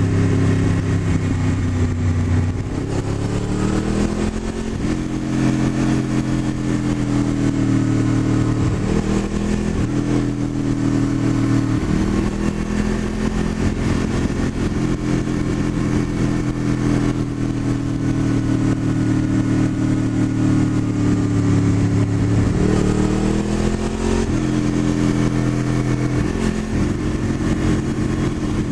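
Honda VFR800 motorcycle's V4 engine running while being ridden. Its note climbs about three seconds in, steps around the middle and climbs again near the end as the throttle is worked, over steady wind rush.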